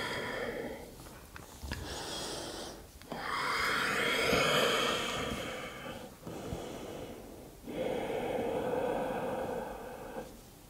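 A woman's slow, deep breaths, heard close on a clip-on microphone, as she holds a seated forward fold: long, even inhales and exhales of two to three seconds each, with brief pauses between.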